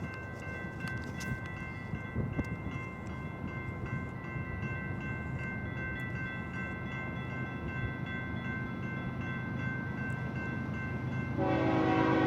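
BNSF intermodal freight train running by: a steady low diesel rumble with several steady high-pitched ringing tones above it. Near the end the locomotive horn starts sounding loudly.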